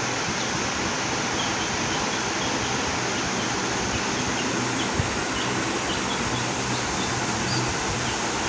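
A steady hiss, with faint, short, high cheeps from chicks scattered through it.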